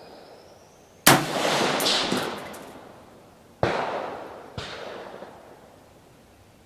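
5.56 AR-15 rifle with a 16-inch heavy barrel firing: a sharp shot about a second in that rings out and fades over a couple of seconds, a second shot about two and a half seconds later, and a fainter bang about a second after that.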